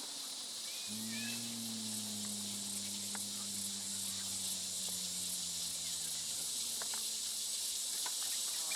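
Steady, dense high-pitched chorus of forest insects such as crickets. A low hum sets in about a second in, sinking slightly in pitch and fading out after about five seconds, and there are a few faint clicks.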